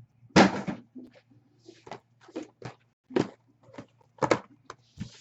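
A string of sharp clicks and knocks with short bits of rustling, as of small objects being handled and set down on a table; the loudest knock comes about half a second in.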